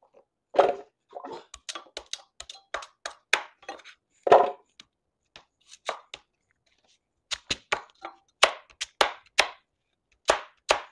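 Chef's knife chopping carrot and sweet potato on a hard cutting board: a series of sharp, irregular knocks, with quicker runs of cuts in the second half.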